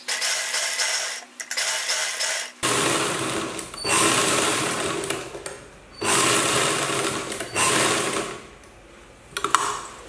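Black domestic sewing machine running a line of stitches, in about five bursts of a second or two with brief pauses between. A few sharp clicks near the end as it stops.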